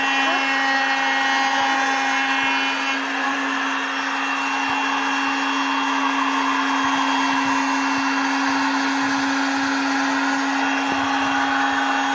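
Handheld electric trim router running at a steady speed while its bit carves a relief pattern into a wooden board: a constant motor hum with the noise of the bit cutting wood.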